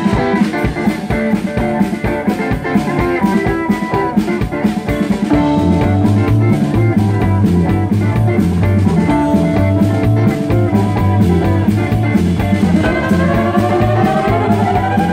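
Live country-rock band playing an instrumental break on drums, bass, guitars and fiddle, with no singing. A heavy, rhythmic bass line comes in about five seconds in, and rising slides sound near the end.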